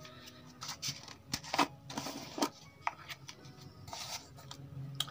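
Hand-handling noise: a scatter of short rustles, scrapes and light taps, with a brief hissy rustle about two seconds in, over a faint steady low hum.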